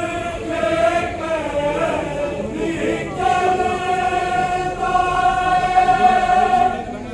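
Mourners' voices singing a Shia mourning chant (noha) together in long drawn-out notes; about three seconds in, one note is held steady for some four seconds.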